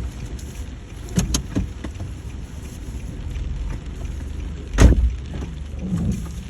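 Rainy outdoor ambience: a steady low rumble with a few sharp knocks, the loudest about five seconds in.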